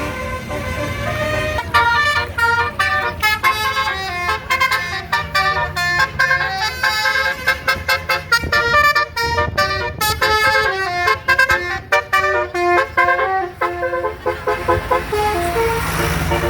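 Bus Basuri telolet musical horn playing a fast melody of short changing notes, starting about two seconds in and stopping near the end, over a low steady engine hum.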